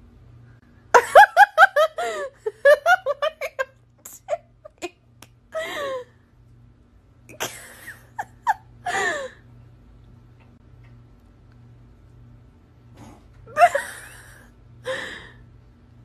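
A person giggling and laughing in quick bursts for a few seconds, then laughing again in shorter bursts twice more.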